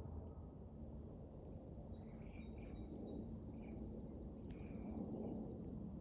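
Outdoor ambience: a low steady rumble under a high, rapid buzzing trill that stops near the end, with a few short bird chirps.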